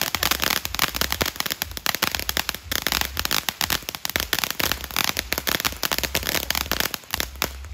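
Ground fountain firework spraying sparks, giving off a dense, rapid stream of crackling pops.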